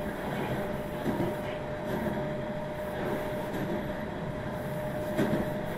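Meitetsu 1700 series electric train running, heard from on board: a steady rumble with a steady tone from its traction equipment, and the wheels knocking over rail joints a few times.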